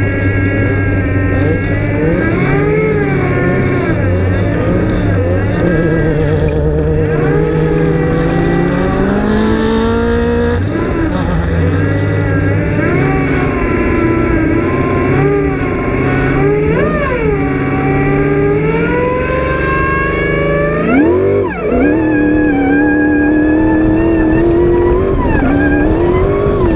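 V8 off-road race buggy engine heard from on board: running steady for about two seconds, then revving up and down again and again as the buggy races across sand, its pitch rising and dropping, with a sharp rev spike and fall late on.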